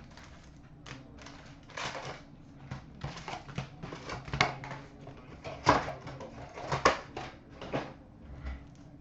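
Hockey card box and packs being opened and handled by hand: irregular rustling, tearing and clicking of cardboard and wrapper, loudest about two-thirds of the way through.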